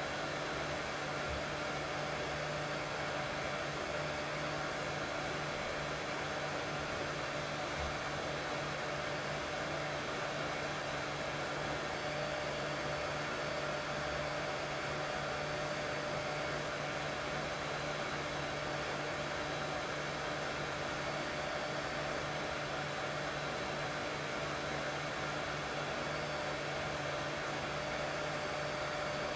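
Continuous white noise for soothing a colicky baby to sleep, steady and unchanging, with a constant low motor-like hum under the hiss.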